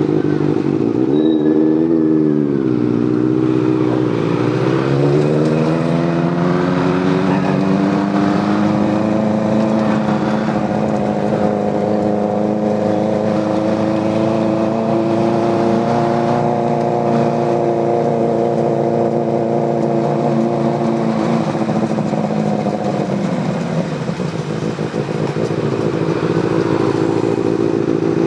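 Motorcycle engines on the move. The revs rise and fall twice in the first few seconds, then settle into a steady engine note that climbs slowly while cruising and eases off about three-quarters of the way through.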